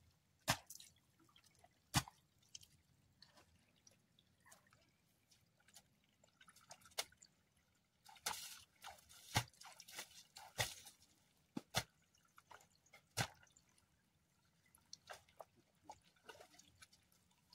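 Faint, irregular wet clicks and drips from muddy water, spaced about a second or two apart.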